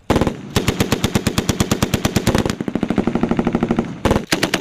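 Belt-fed machine gun firing on full auto: a short burst at the start, then a long burst of about three and a half seconds, a brief break, and another burst near the end.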